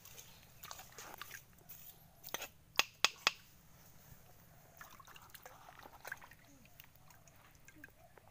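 A bolo knife and bare hands digging in wet mud and shallow water: wet squelching and small splashes, with scattered sharp clicks, the loudest three in quick succession about three seconds in.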